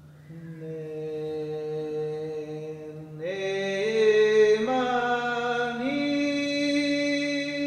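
Slow chanted singing: a voice holding long notes that step upward in pitch three times, over a steady low drone.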